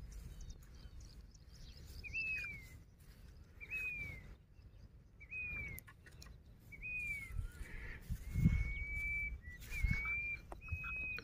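A bird calling: a short whistled note that falls in pitch, repeated about every one and a half seconds, giving way to a few longer, level notes near the end. Faint low thumps sound underneath.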